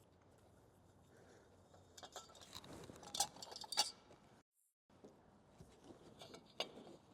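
Small metal chainsaw muffler parts and hand tools clinking and rattling as they are handled, with a cluster of sharp clinks about two to four seconds in and a single clink near the end.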